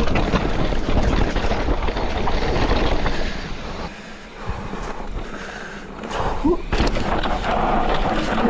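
Scott Ransom mountain bike riding down a dry dirt trail: tyre roar and the rattle and knocks of the bike over rough ground. The noise falls away for about three seconds near the middle, then comes back loud.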